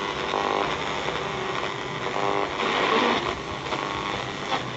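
Shortwave static hissing from a National RX-5135 radio-cassette recorder's speaker on its SW 2 band, with faint snatches of a distant broadcast coming and going in the noise and a louder surge of static about three seconds in.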